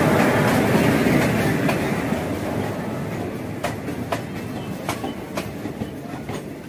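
Electric-hauled passenger express rolling into the platform, its coaches passing close by with a dense wheel rumble that fades as the train slows. In the second half, sharp clicks of wheels over rail joints come about twice a second.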